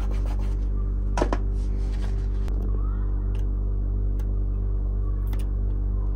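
Background music: a sustained low drone with sparse light ticks, and one sharper click about a second in.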